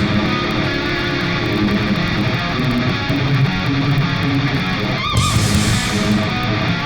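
Loud guitar-driven music with electric guitar, running without a break, with a brief warbling high note about five seconds in.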